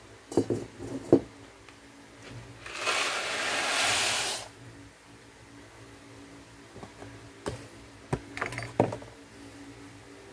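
Dry macaroni poured from its cardboard box into a saucepan, a rushing rattle lasting about two seconds near the middle, with knocks from the box and pot before and after.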